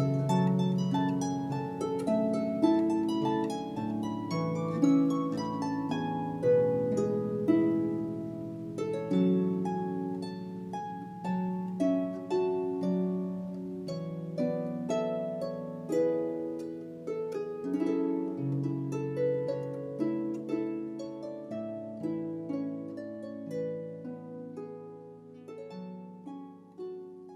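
Instrumental music on a plucked string instrument: notes struck one after another, each ringing on and overlapping the next, slowly dying away near the end.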